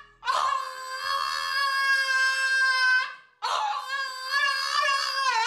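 French bulldog howling: two long howls, the first held on a steady pitch for about three seconds, the second, after a brief break, wavering up and down in pitch.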